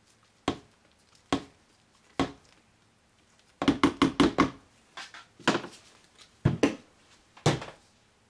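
Sharp plastic knocks and taps of a stick blender and silicone spatula knocked against a plastic jug to clear off soap batter: three single knocks, a quick run of five or six taps about halfway through, then a few more near the end.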